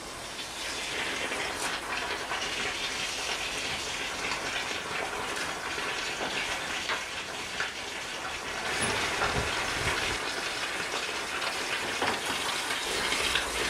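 Steam hissing steadily into a plastic steam bag around a wooden inwale being steamed soft for bending, with the plastic sheeting crinkling as it is handled. There are a few dull knocks about two-thirds of the way in.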